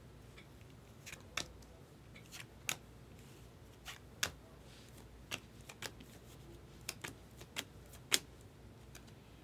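2024 Topps Stadium Club Compact baseball cards being flicked off a stack held in the hand, one after another: a dozen or so sharp, irregularly spaced clicks as the cards snap and slide. A faint low hum runs underneath.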